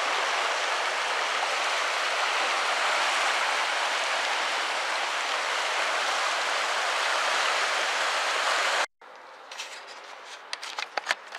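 A rain-swollen creek in flood, its water rushing in a steady, even roar. It cuts off suddenly near the end, leaving a much quieter room with a few faint clicks.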